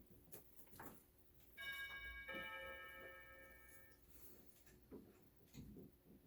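Two-note chime, a higher ding then a lower dong, ringing and fading over about two seconds. It is typical of an electronic door-entry chime.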